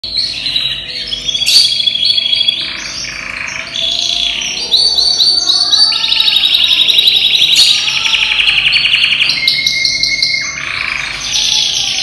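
Yellow domestic canary, a ten-month-old bird in full song condition, singing a varied song of fast rolling trills and clear whistled notes. A long rapid trill runs through the middle, and a held steady whistle comes near the end.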